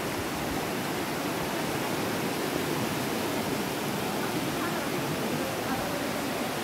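Steady rush of a waterfall, water cascading over rock ledges into a pool below.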